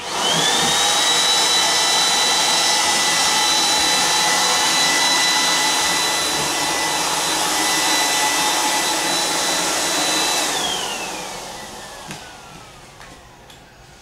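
A 2-horsepower electric blower motor, the air supply of an air-dolly mover, switched on: it spins up within a fraction of a second to a loud, steady high whine with a rush of air as it feeds the foot plates. About ten seconds in it is switched off and the whine falls in pitch as it spins down.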